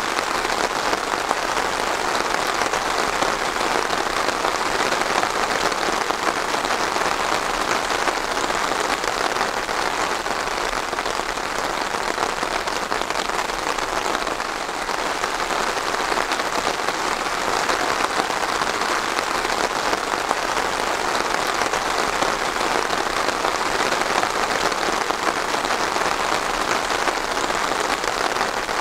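Steady, even rainfall pattering on a surface, with no let-up.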